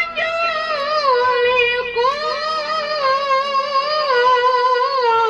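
A young boy qori reciting the Quran in the melodic tilawah style, in a high voice into a microphone. He holds long, ornamented phrases that slide and waver in pitch, with a brief dip about two seconds in.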